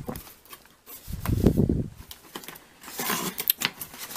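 Packaging being handled as a camera box is unpacked: a rubbing, rustling sound about a second in, then a run of light clicks and taps.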